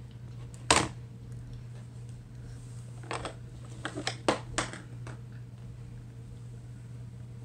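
A single sharp knock about a second in, then a quick cluster of lighter clicks and taps of small hard objects a few seconds later, over a steady low hum.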